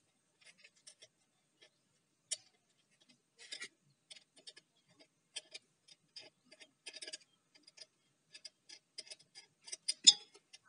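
Irregular light metallic clicks and clinks of a saw chain and a screwdriver as a 12-inch chainsaw bar and chain are fitted to an angle grinder's chainsaw attachment. There is a sharper click about two seconds in and the loudest clack near the end.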